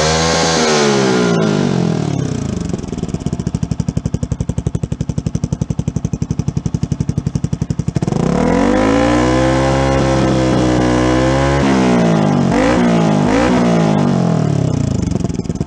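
Yamaha R15's single-cylinder four-stroke engine running through a Sakura carbon aftermarket muffler. It drops from a rev to a steady pulsing idle, is revved up again about eight seconds in and held for about three seconds, falls back, then gets two quick blips before settling to idle near the end.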